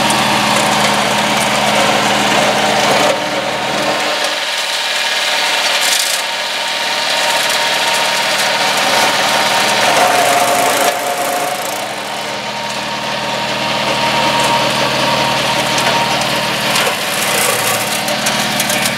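Two-cylinder diesel engine of a mini crawler tractor running under load, driving a Zanon TML 115 flail mower that shreds grass and weeds with a steady hiss. The engine's low hum fades from about four seconds in and returns near the end, while the mower's shredding noise goes on.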